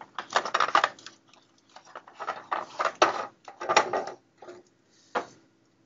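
Plastic clicking and rattling as a Ubiquiti Nanobeam M5 antenna's plastic mounting bracket is twisted loose and taken off the back of the dish, in several irregular bursts of clicks with a single click near the end.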